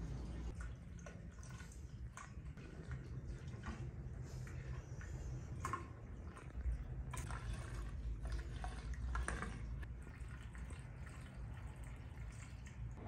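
Water dripping irregularly in a bathroom: faint, scattered drops over a low steady rumble.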